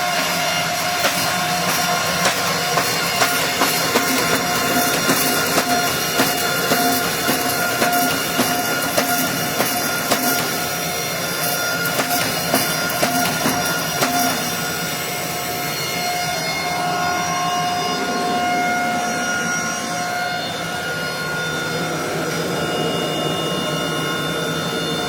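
Steady hum of forging equipment running, with irregular sharp knocks and clicks about one to two a second as hot steel is worked on drawing dies to draw out a knife tang. The knocks stop about halfway through, leaving the steady hum.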